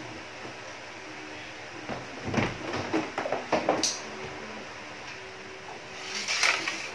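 Short knocks, clicks and rustles of aquarium equipment and parts being handled: a cluster from about two to four seconds in with a sharp click near the end of it, and another brief clatter near the end.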